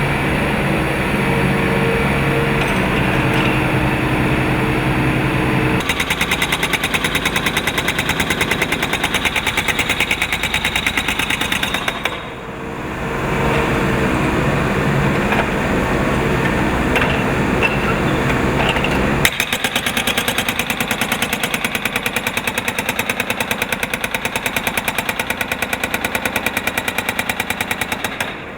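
Excavator-mounted hydraulic breaker hammering in rapid, even blows over the excavator's running engine. The hammering starts about six seconds in, stops for several seconds midway while the engine keeps running, then resumes until just before the end.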